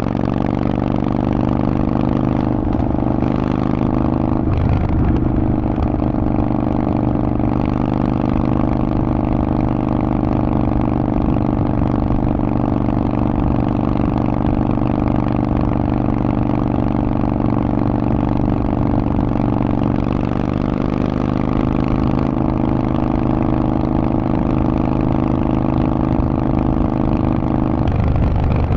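Harley-Davidson Forty-Eight's 1200 cc air-cooled V-twin running steadily through a Vance & Hines exhaust. The engine note shifts about four to five seconds in and again near the end.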